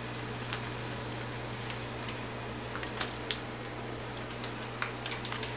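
A few faint, scattered clicks and ticks over a steady low hum and light hiss.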